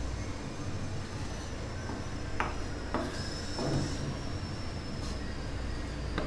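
Wooden spatula stirring a watery tomato gravy in a kadhai, scraping the pan, with a few sharp knocks of the spatula against the pan around the middle.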